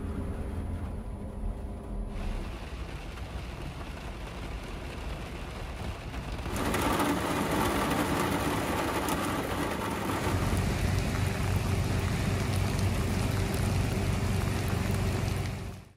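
Heavy rain falling on a campervan's roof and roof vent, at first fainter under a low hum, then much louder and denser from about six and a half seconds in.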